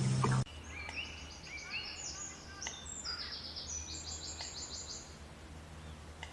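A small bird calling in a rapid series of short, high, rising notes, which stop about five seconds in. Before them, a louder noisy sound cuts off abruptly about half a second in.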